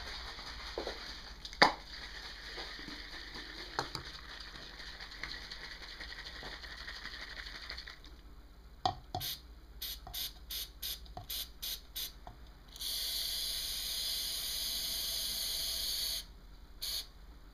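A sharp knock about a second and a half in, then an aerosol can of Easy-Off oven cleaner gives a quick run of short bursts, a steady spray hiss lasting about three seconds, and one last short burst. The cleaner is being sprayed onto a carbon-fouled engine valve in a tin can to loosen the carbon.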